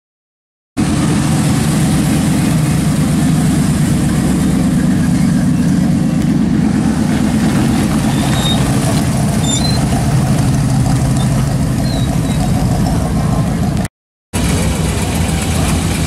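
A car engine idling steadily with an even, lumpy pulse. The sound drops out to silence briefly at the start and again near the end.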